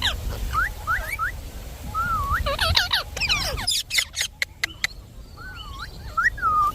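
Bird chirping in short whistled notes that rise and fall, with a quick run of sharp clicks a little past halfway and a longer held note near the end.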